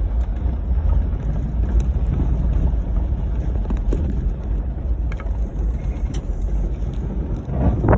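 Ford Crown Victoria driving off-road: a steady low rumble of engine and tyres on dirt, with scattered knocks and rattles that get heavier near the end.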